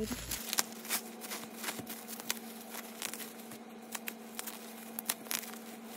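Bubble wrap crinkling and crackling in irregular clicks as it is handled and pulled open to take out an album.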